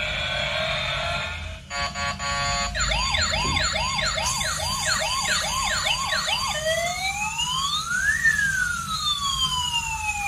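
Toy police car's electronic siren sound effects through its small speaker: a wavering tune, then a quick pulsing beep about two seconds in, then a fast repeating whoop siren, about three whoops a second. Near the end it changes to a slow wail that rises and then falls.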